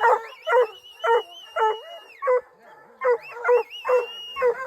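Hunting hounds barking treed: a steady chop of barks about two a second, with a long high whining howl from another dog held over them twice.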